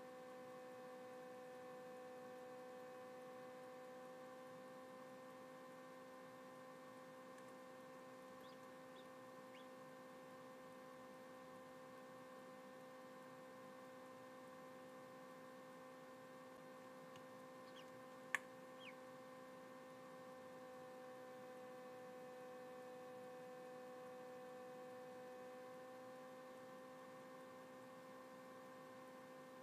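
Small egg incubator running with a faint steady hum. One sharp click sounds about two-thirds of the way through.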